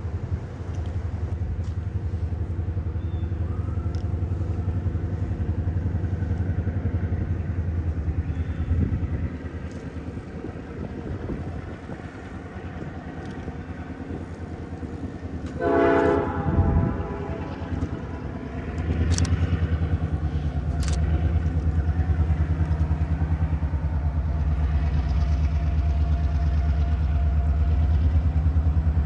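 EMD diesel locomotive of a passenger train running with a steady low engine drone, sounding one short horn blast about halfway through. The engine grows louder just after the horn, with a couple of sharp clicks.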